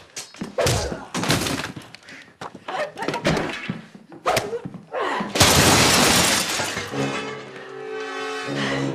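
Fight sounds: a quick run of blows, thuds and short grunts, then a glass table smashing loudly about five seconds in, with shattering glass that rings on for over a second. Music with held chords comes in after the crash.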